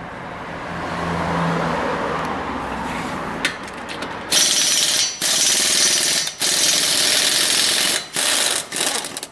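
Pneumatic impact wrench hammering in several bursts with short breaks, working out a car's wheel bolts whose threads are stripped and full of metal filings; a softer rising and falling noise comes first, for about four seconds.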